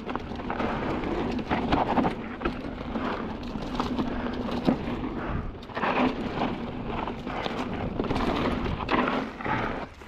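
Kellys Swag 50 mountain bike clattering down a dry dirt trail: tyres on loose dirt and roots, with rapid rattling and knocking from the bike.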